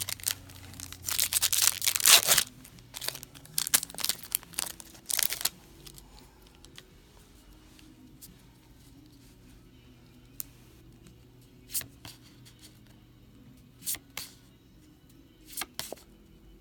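Foil booster pack wrapper being torn open, about two seconds of loud tearing followed by crinkling of the wrapper. After that, quieter handling with a few short soft clicks spread out.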